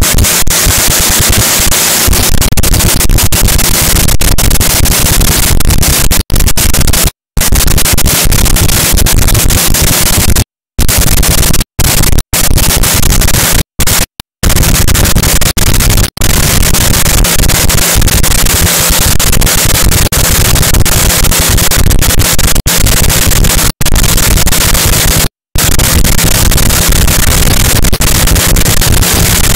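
Supercharged nitromethane Funny Car drag engine running at a pit warm-up, a harsh, very loud din that fills the recording, with several split-second dropouts to silence.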